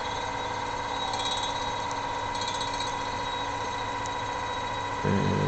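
Homemade magnetic stirrer, a small computer fan driven by a potentiometer speed-control circuit, running at its slowest speed with a steady high whine and faint soft ticking. A louder low hum comes in near the end.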